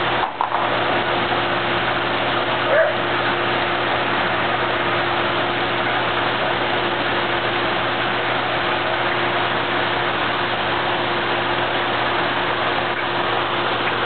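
Water pouring steadily over a backyard pool's artificial rock waterfall, a constant rush with a low steady hum underneath. One brief louder sound about three seconds in.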